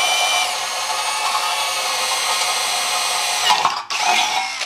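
Brushless 18V cordless drill/driver running at speed, a 4 mm metal bit cutting into thin steel tube: a steady motor whine with the bit grinding. Near the end it stops briefly, runs once more for a moment, then cuts off.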